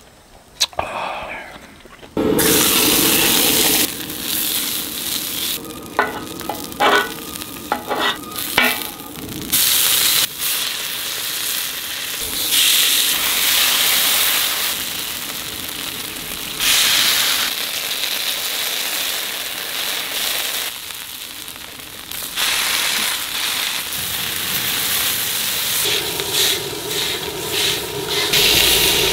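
Skewered food sizzling loudly in oil on a flat iron griddle, starting suddenly about two seconds in. A metal press pushing the skewers against the plate gives a few short metallic clinks midway.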